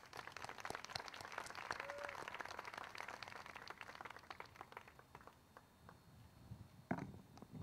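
A small outdoor crowd applauding lightly, the clapping thinning out and stopping after about five seconds. A brief louder sound comes near the end.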